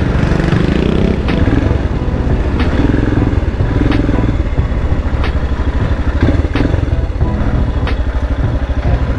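Royal Enfield Himalayan's single-cylinder engine running steadily while the bike is ridden in traffic. A faint tick repeats about once a second.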